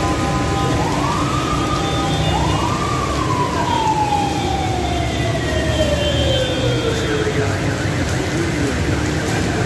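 Heavy rain pouring steadily on a street, with traffic under it. Over the rain a wailing tone rises in pitch twice, then slowly falls away over about five seconds.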